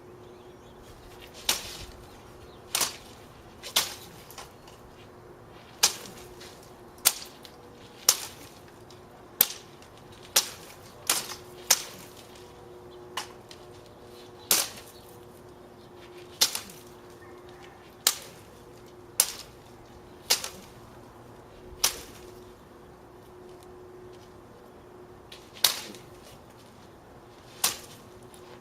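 Katana swung into mesquite branches, about nineteen quick, sharp cutting strokes at irregular intervals, mostly a second or two apart, with a longer pause a little past the middle.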